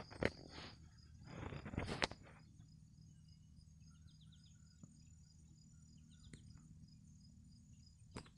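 Crickets chirping steadily in a fast, even pulse. A couple of short rustling noises and a sharp click stand out in the first two seconds, and a few faint clicks follow.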